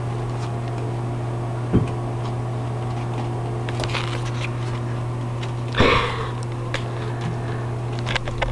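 Kittens scuffling and climbing about: scattered light clicks and rustles over a steady low hum, with one louder short sound about six seconds in.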